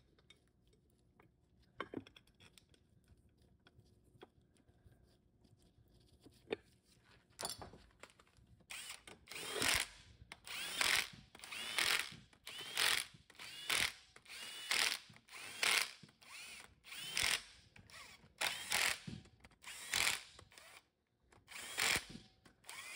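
Cordless electric ratchet driving bolts into the aluminium case of a Mitsubishi W4A33 automatic transmission. It runs in short bursts, about one a second, starting about seven seconds in, each burst with a rising whine as the motor spins up.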